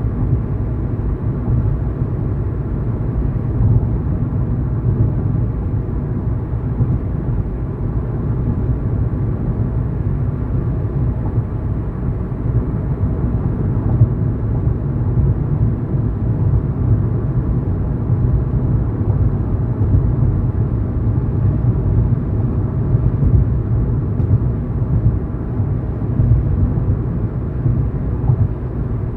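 A car driving at road speed: a steady low rumble of tyre and engine noise.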